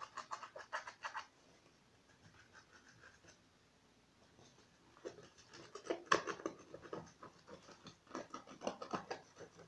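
Small paintbrush scratching over a crumpled paper-napkin surface on cardboard while painting, in quick strokes that come in a short burst at the start and again from about five seconds in.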